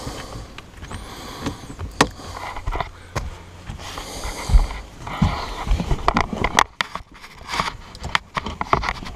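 Scattered clicks and knocks of someone moving about inside a boat with a handheld camera, with breathing close to the microphone swelling a few times.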